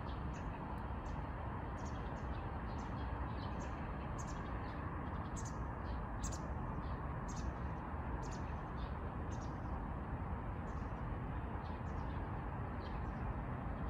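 A small bird chirping over and over, short high notes about twice a second that thin out near the end, over a steady low outdoor rumble.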